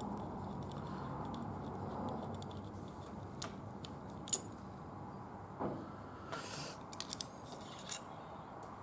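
Scattered sharp metallic clicks and taps as the small steel parts of a dismantled wheel-lock mechanism are handled and worked, about half a dozen in all with a quick cluster near the end, over a steady low background hum.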